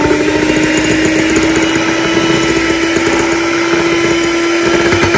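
Electric hand mixer running at a steady pitch, its beaters whisking melted butter into a foamy egg-and-sugar cake batter in a glass bowl.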